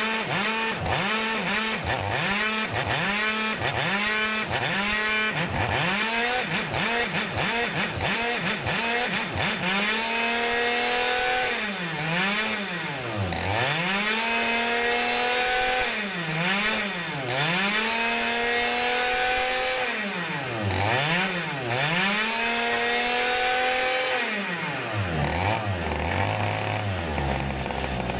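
IAME two-stroke kart engine running on a hydraulic dyno and revving up and down. First it makes quick blips, about one or two a second. From about ten seconds in it holds longer runs at higher revs with sharp drops between them, as the load is set with the dyno's flow control valve. Near the end it falls to a low, uneven idle.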